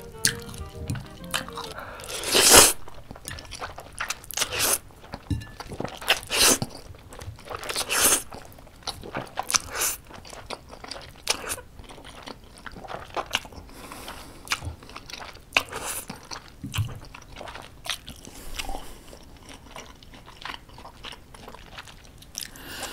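Close-miked eating of jjapaguri noodles: slurping and wet chewing in short, irregular bursts, the loudest and longest about two and a half seconds in.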